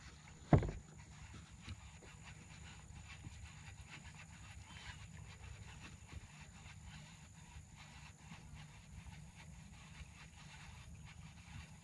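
Faint handling noise in a kayak: one thump about half a second in, then a low steady rumble with soft clicks and rustles.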